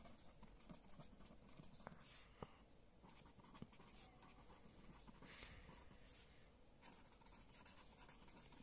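Faint scratching of a red pen writing on ruled notebook paper, soft strokes with a few small ticks as letters are formed.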